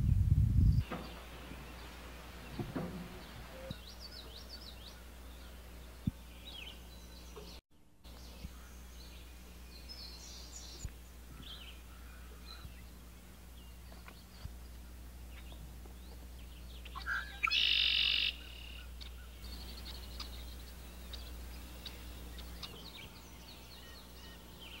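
Woodland birds chirping and calling here and there over a steady low hum, with one louder call lasting about a second, about 17 seconds in. A low rumble cuts off within the first second, and the sound drops out for a moment near 8 seconds.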